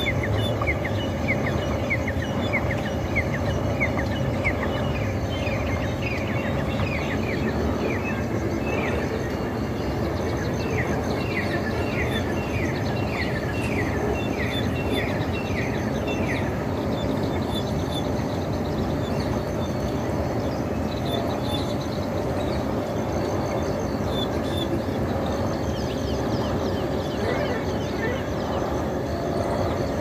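Rose-ringed parakeets calling: runs of short, sharp, falling calls, a few a second, that stop about halfway through, over a steady background noise.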